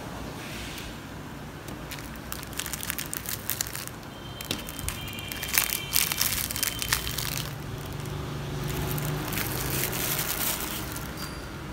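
Thin clear plastic bag crinkling and crackling as it is squeezed and turned in the hands. The rustling starts about two seconds in and is loudest midway.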